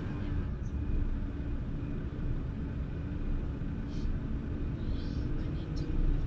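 Steady low rumble of idling engines and road traffic heard from inside a car waiting at an intersection, with a few brief higher sounds about four, five and six seconds in.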